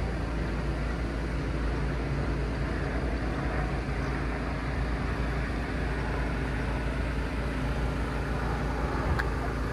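A steady engine drone with a deep rumble underneath, unchanging throughout.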